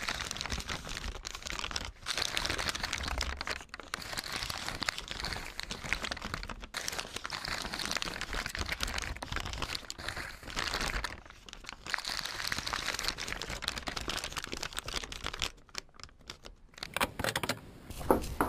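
Sheets of paper being crumpled and rustled in the hands, a dense crackling that drops away briefly about two-thirds of the way through and again near the end.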